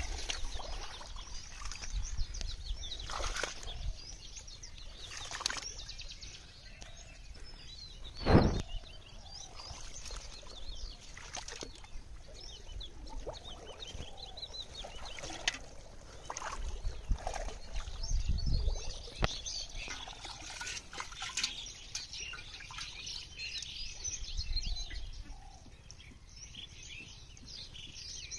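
Shallow pond water splashing and sloshing as someone wades and hauls in a fishing line by hand, with birds chirping in the background. There is one sharp thump about eight seconds in.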